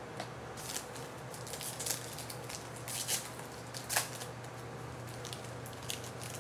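Trading cards being handled: an irregular run of crisp, papery scrapes and flicks as cards are slid through the hands, one sharper flick about four seconds in.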